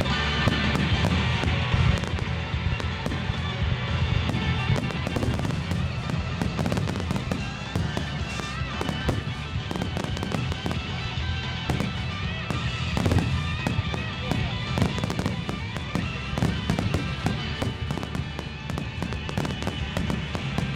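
Fireworks display going off continuously: aerial shells bursting one after another in quick succession, with crackling between the bangs. Music plays over loudspeakers underneath.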